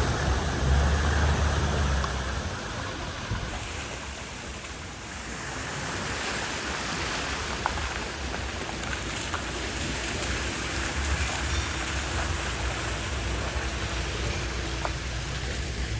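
Steady rush and splash of floodwater at a ford, with a vehicle's engine rumbling at the start and fading away within the first few seconds.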